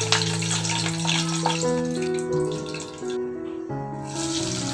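Background instrumental music with held notes, over the hiss and crackle of whole spices sizzling in hot oil as they are stirred; the sizzle cuts out briefly about three seconds in and then returns.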